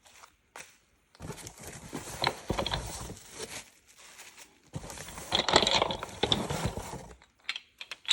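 Contents of a parcel being handled and rummaged through: packaging rustling and small parts clattering in two spells of a couple of seconds each.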